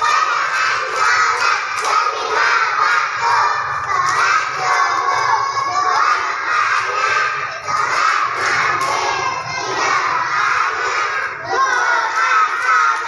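A group of young children shouting and calling out together, loud and continuous, with hand claps among the voices.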